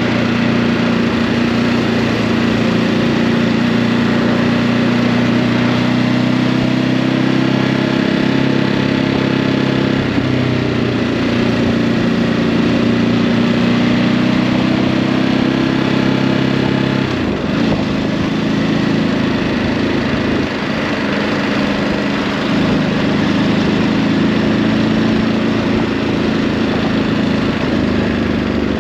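Ducati Hypermotard 950's L-twin engine through its stock exhaust, running steadily at low revs on the move, with a brief drop and change in the engine note about two-thirds of the way through.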